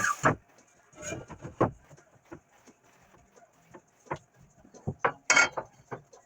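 Loud noise cutting off at the start, then scattered knocks and clanks of steel parts being handled at a workbench, the loudest a sharp clank just after five seconds in.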